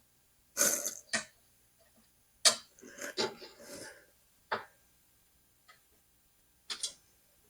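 Scattered clicks, knocks and short scrapes of a desktop PC case being opened and its panel handled, with a small cluster of rattling near the middle and a double click near the end.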